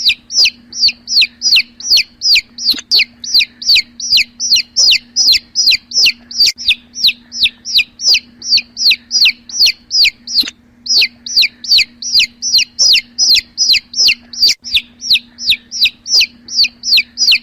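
Domestic chicks peeping: a rapid, steady run of short high peeps, each falling in pitch, about three a second, with a brief pause about ten seconds in.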